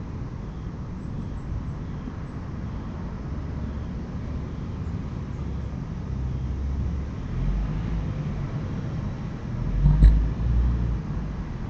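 Steady low outdoor background rumble, with one short louder sound about ten seconds in.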